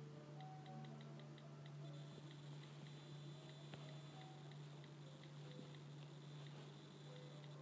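Near silence: a steady low hum, with a quick run of faint ticks, about seven a second, for a second or so, and a faint high whine from about two seconds in.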